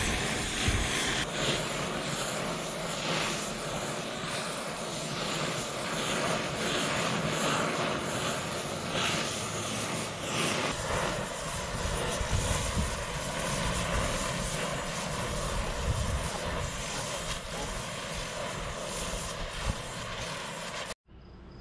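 Oxy-fuel torch flame hissing steadily as it heats seized bolts on a radiator tank so they can be backed out, with a few faint knocks of a ratchet on the bolts. The hiss cuts off abruptly near the end.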